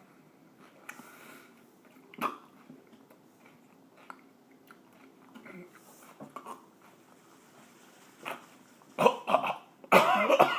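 A man coughing, with one short cough about two seconds in and two hard coughing fits near the end, as the heat of a hot chili pepper catches in his throat.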